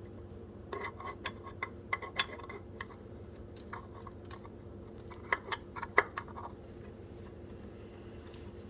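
Wrench and hand tools clicking and clinking against metal fittings, in irregular short clusters, while working loose a tight oil pressure sensor fitting on an OM617 diesel engine.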